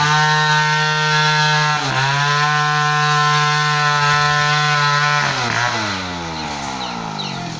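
Large Stihl chainsaw running at full throttle with a brief dip about two seconds in. About five seconds in the throttle is released and the engine note falls in pitch as it slows toward idle.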